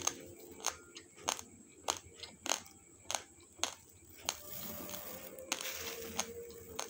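Dry raw basmati rice being crunched between the teeth: sharp cracks about every half second. Near the end a softer rustle of dry grains shifting as a hand scoops through the rice in a steel bowl.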